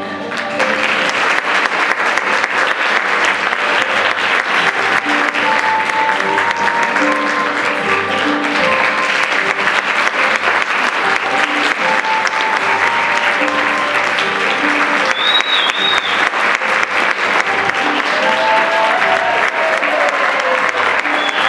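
Audience applauding steadily, breaking out right at the start, with music playing underneath.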